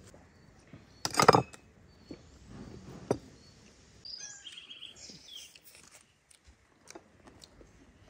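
Table sounds of a meal: scattered light clinks and taps of cutlery and dishes, with one loud, short crackle about a second in. Birds chirp about four to five and a half seconds in.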